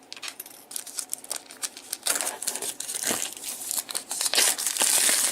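Plastic packaging crinkling and tearing as a product box is unwrapped, a dense crackle that grows louder about two seconds in.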